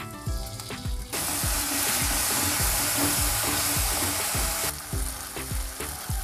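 Onion, capsicum and spring onion with chilli sauce stir-frying in hot oil in an aluminium wok, turned with a metal spatula. A loud sizzle starts about a second in and stops just before five seconds. Background music with a steady beat plays throughout.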